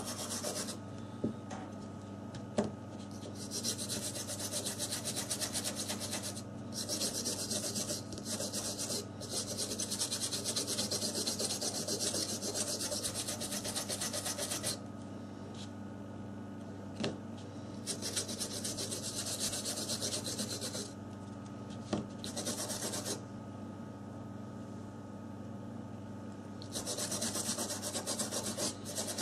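A brush scrubbing rapidly over a water-damaged Samsung Galaxy S4 circuit board to clear corrosion, in several spells of fast back-and-forth strokes with short pauses between.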